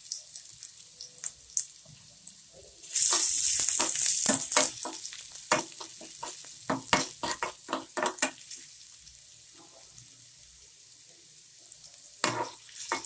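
Chopped onion sizzling in hot oil in a kadai while a spatula stirs it, with many sharp scrapes and taps against the pan. The sizzle flares up loudly about three seconds in and settles within a couple of seconds; the stirring goes quiet for a while, then starts again near the end.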